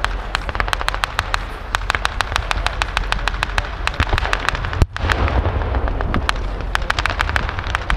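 Blank-firing small-arms gunfire in a staged battle: many sharp cracks in quick, irregular succession, with one heavier boom about five seconds in.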